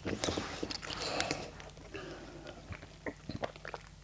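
Close-miked chewing of a mouthful of hot dog in a bun: soft wet mouth clicks and smacks, busiest in the first second or so and thinning out toward the end.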